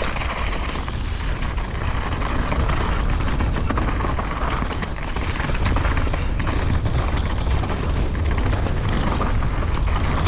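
Mountain bike descending at speed: wind buffeting the microphone as a steady low rumble, over the rush and rattle of tyres and bike on rough ground, with scattered small knocks.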